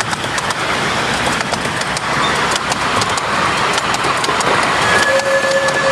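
Miniature-railway carriages rolling past close by, their small steel wheels making a steady rumble on the track with frequent irregular clicks over the rail joints. A brief steady high tone sounds near the end.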